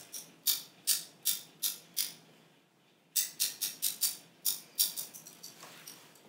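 Metal wire beaters of a hand mixer knocked and rattled against a glass bowl to shake off stiff whipped cream: short, sharp rattling strokes about three a second, in two runs with a pause of about a second between them.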